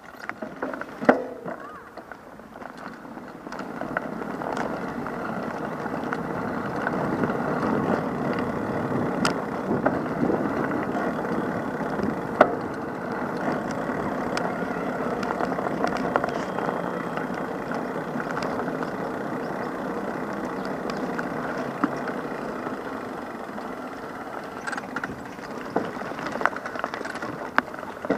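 Steady outdoor street ambience, a continuous wash of noise that swells about three and a half seconds in, with scattered sharp clicks.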